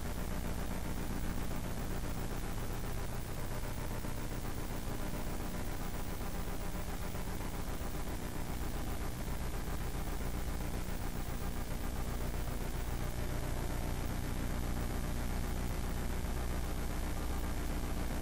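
Steady low hum with an even hiss: room tone of the council chamber through its sound system.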